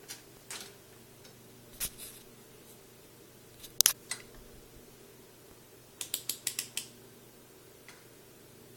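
Multimeter rotary selector dial being clicked through its positions, setting it for DC volts: a few scattered clicks, a sharp double click about four seconds in, then a quick run of about seven clicks.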